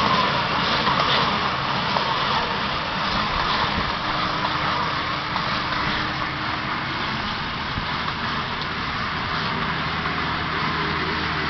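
New Holland T7.270 tractor's six-cylinder diesel engine running steadily while pulling a round baler, a low engine hum under a steady mechanical hiss.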